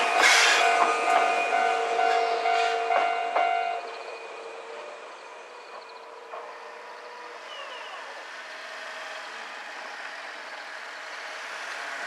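Japanese level-crossing electronic alarm (Kyosan, electronic-tone type) sounding steadily while an electric train runs through the crossing, with a brief wheel squeal at the start and a few wheel clicks. The alarm stops abruptly about four seconds in as the train clears, leaving quiet street noise, and a car approaches near the end.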